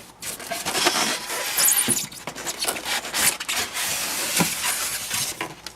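RC boat hull being pulled out of its styrofoam packing: continuous scraping and rubbing of foam and plastic with scattered knocks.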